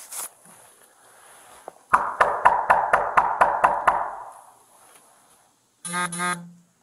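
A gloved fist knocking hard and fast on a wooden apartment door, about a dozen knocks at about five a second, starting about two seconds in. Near the end a short two-part steady buzzing tone sounds.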